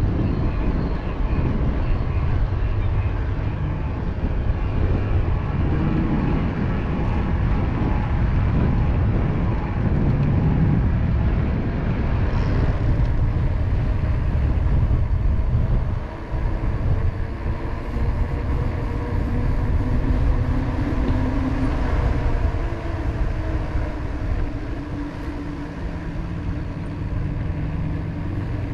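Ride-along sound from an electric mountain bike on the move: a steady rumble of wind on the microphone and tyre noise, with motor traffic passing. A low engine-like hum is most noticeable in the second half.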